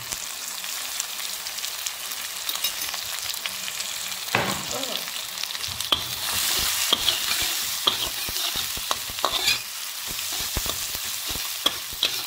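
Pounded chili, onion, garlic and dried anchovy paste sizzling in hot oil in a wok, as it is sautéed toward crispness, with a metal spatula scraping and clinking against the pan as it is stirred. The sizzling swells about six seconds in.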